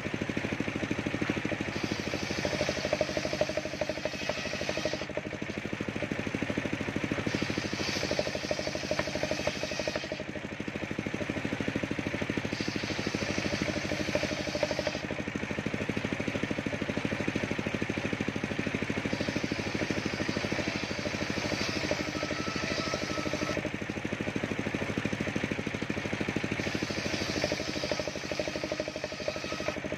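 Engine-driven bench circular saw running steadily while ripping waru (sea hibiscus) planks: about five cuts of a few seconds each, the blade's hiss rising as it bites into the wood and dropping back between passes.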